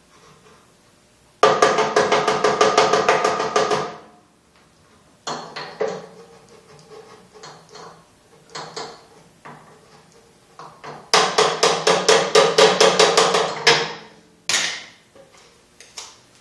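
Ball peen hammer tapping rapidly on a template laid over a metal engine-tank bracket, striking to dent the bolt-hole positions into it. There are two quick runs of about six ringing blows a second, one just after the start and one past the middle, with a few single taps between and after them.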